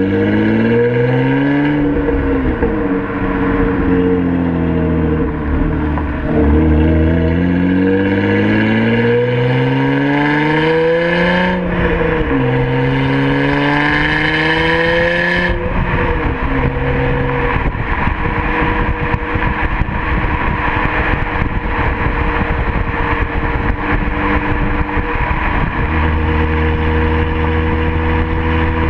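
A 2005 Acura TL's 3.2-litre V6 through an exhaust with the mid muffler, resonator and third catalytic converter deleted, heard under way. In the first half its pitch climbs and drops back sharply at each upshift as the car accelerates. From about halfway it runs at a steady engine speed, cruising.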